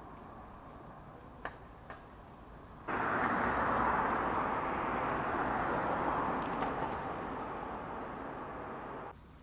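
A Volvo sedan driving past on an asphalt street: steady tyre and engine noise that starts abruptly about three seconds in, is loudest just after, fades slowly and cuts off near the end. Before it, a quiet street background with two faint clicks.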